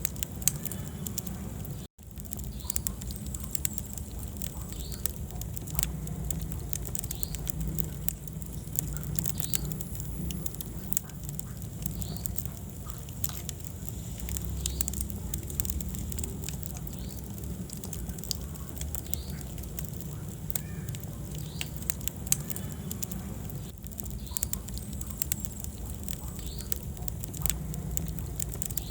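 Wood fire burning in a fireplace, crackling with frequent sharp pops over the low, steady rumble of the flames. A brief dropout comes about two seconds in.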